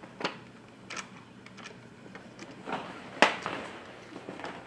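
Sharp plastic clicks and knocks of a battery being pushed into a toy RC truck's battery compartment: about five separate taps, the loudest about three seconds in.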